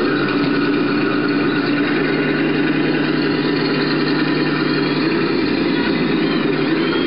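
Radio-controlled model tank driving, giving a steady engine-like drone. A low hum joins about two seconds in.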